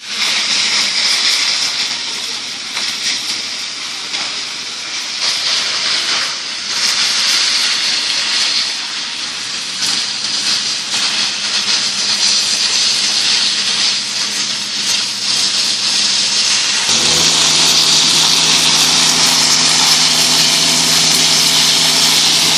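Engines of construction machinery running steadily with a broad hissing noise. About seventeen seconds in, a stronger engine hum comes in and the noise grows louder.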